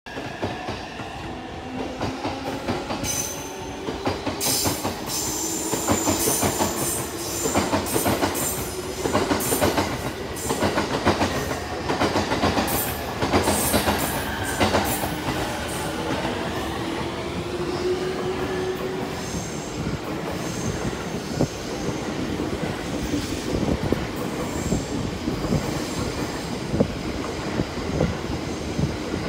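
E231 series 1000-subseries electric multiple unit pulling away and accelerating past: the traction motors whine in pitches that climb steadily for about the first twenty seconds, over wheel-on-rail noise with repeated clacks from the wheels.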